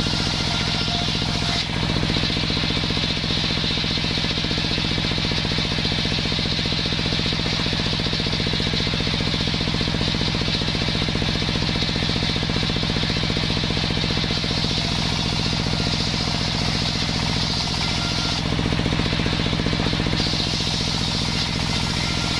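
Large table circular saw ripping sengon wood, a steady high cutting hiss over the saw's engine running evenly underneath. The cutting noise eases briefly near the end as one piece finishes.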